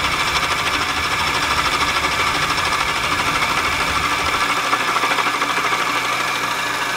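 Milling machine with an indexable carbide cutter taking a cut across bonded brake-lining material: a steady, fast-pulsing cutting sound over the machine's running hum. The deep low rumble drops away about four and a half seconds in.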